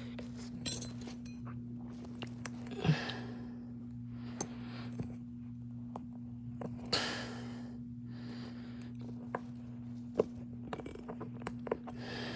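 Scattered small clicks, taps and scrapes of tools prying at an iPhone XR's front camera and sensor parts, with a few breaths, over a steady electrical hum.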